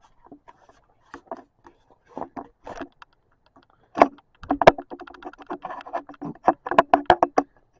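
A run of close knocks, clicks and scrapes from objects being handled near the microphone. They are sparse at first and become a dense clatter from about four seconds in.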